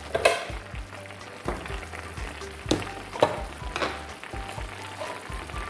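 Tomato-based chicken stew simmering and sizzling in a pan on the stove, with about five sharp clicks against the pan. Background music plays underneath.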